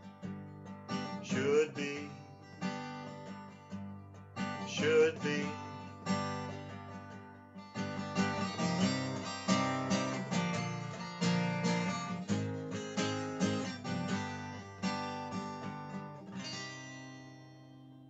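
Acoustic guitar strummed in chords as the song's instrumental close. The strumming gets busier about halfway through, then a final chord rings out and fades near the end.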